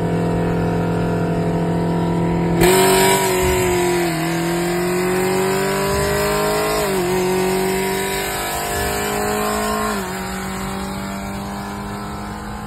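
BMW G80 M3 Competition's twin-turbo inline-six heard from inside the cabin. It runs at a steady cruise, goes to full throttle about two and a half seconds in, and its revs climb with quick upshifts about 4, 7 and 10 seconds in, before it eases off.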